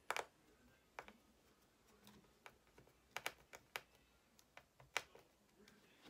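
Faint, irregular clicks and taps from a small Phillips screwdriver and hands driving a screw at the screen hinge of an HP Chromebook 14 laptop. The sharpest click comes right at the start and a quick cluster follows about three seconds in.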